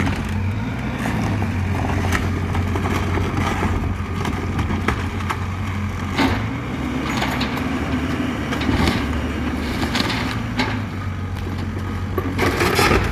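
Caterpillar 305 mini excavator's diesel engine running with a steady low hum, with scattered knocks and crunches of demolition debris and a louder crashing clatter near the end.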